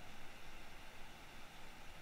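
Faint steady hiss of microphone noise and room tone, with a low rumble underneath.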